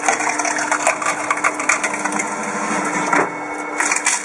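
Electric cone log splitter: the motor hums steadily while the spinning threaded cone bores into a log, and the wood cracks repeatedly. The loudest cracks come near the end as the log splits apart.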